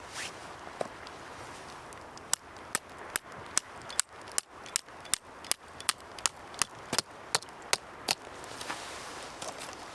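Steady hiss of ocean waves, with a run of about sixteen sharp, evenly spaced clicks, a little over two a second, from about two seconds in until about eight seconds in.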